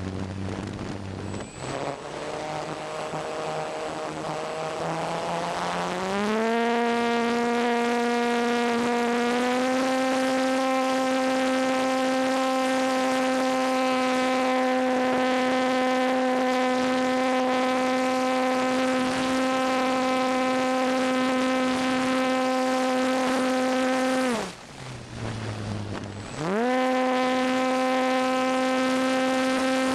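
Electric motor and propeller of a ParkZone T-28 Trojan RC plane, heard from an onboard camera. It whines low at part throttle with wind rush for the first few seconds, then rises quickly to a steady high whine under full throttle. Near the end the throttle is chopped, the pitch drops quickly, and about two seconds later it climbs back up.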